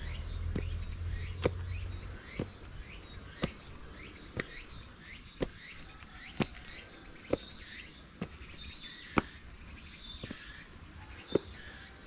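A weaving loom working Tango chirimen silk, heard as a steady rhythm of sharp clacks about once a second, with fainter ticks between the beats.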